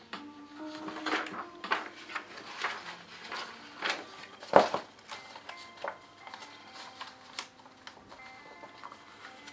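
Loose printed paper pages handled and turned over on a desk: a run of rustles and soft taps, the loudest knock about four and a half seconds in, over quiet lo-fi background music.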